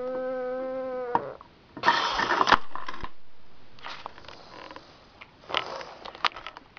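A steady held note for about a second, then a short hissing burst about two seconds in and another near the end, with scattered light clicks of plastic LEGO pieces being handled on a wooden floor.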